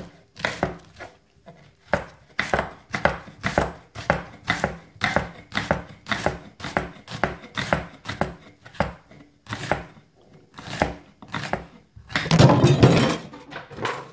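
Chef's knife chopping an onion on a wooden cutting board, with sharp knocks about two a second. About twelve seconds in comes a louder, second-long clatter as the camera's tripod tips over.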